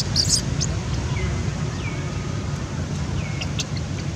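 Outdoor ambience with a steady low rumble and several short, falling high chirps, plus a brief rustle at the very start.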